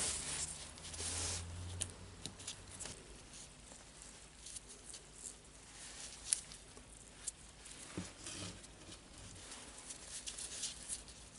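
Faint, scattered clicks and light scraping of small metal parts being handled as a cordless drill's clutch and gearbox are fitted together, with a low hum for the first couple of seconds.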